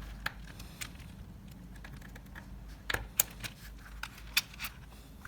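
Small metallic clicks and taps of a spring-bar tool working at a rusty watch spring bar between the case lugs and bracelet, irregular and spread out, with a few sharper ticks past the middle.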